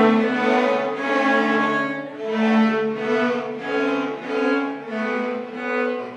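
Music played on bowed string instruments, cello and violin: a melody of held notes that change every half second to a second.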